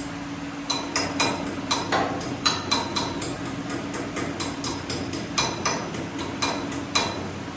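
Hammer tapping on steel front-suspension parts: a dozen or so sharp, irregularly spaced strikes, each with a short metallic ring, under a steady low shop hum.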